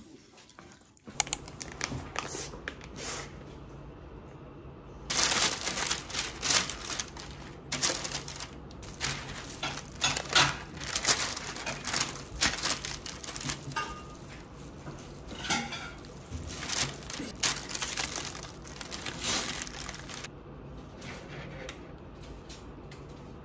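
Parchment paper and disposable plastic gloves crinkling and rustling as raw eel fillets are handled and trimmed in a paper-lined air-fryer basket, busiest through the middle stretch, over a low steady hum.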